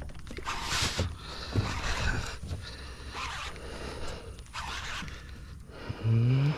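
Irregular rustling and scraping sounds in uneven bursts while a fish is being played on a rod, with a short rising vocal grunt near the end.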